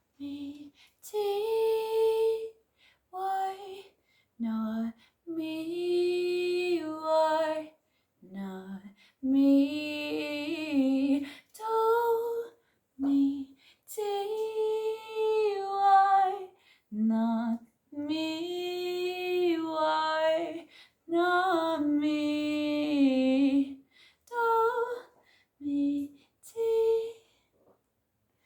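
A woman's unaccompanied singing voice carrying a melody in short held phrases, with brief silences between them.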